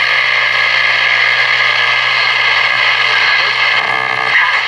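Zenith 6S527 tube radio's speaker putting out a steady hum and buzzing hiss. The hum does not change with the volume control, and the restorer suspects a wire routed too close to the AC power.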